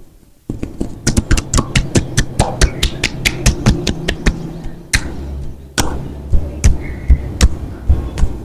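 Rapid sharp slaps and taps of hands striking skin, as in a percussive back massage, about five or six a second. There is a short lull before the middle, then two louder single smacks and more quick taps.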